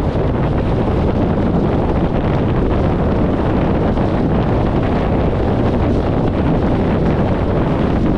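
Steady wind rush buffeting a camera microphone mounted outside a moving car at highway speed, mixed with road and running noise from a 1994 VW Gol with a 1.6-litre CHT engine.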